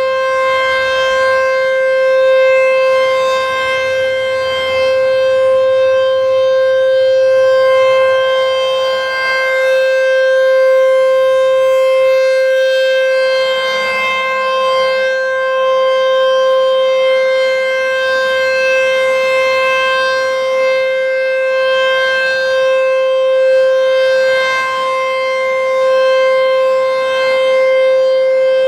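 American Signal T-128 outdoor warning siren sounding a steady alert tone during its test. It holds one unchanging pitch with strong overtones, while its loudness swells and eases gently every few seconds.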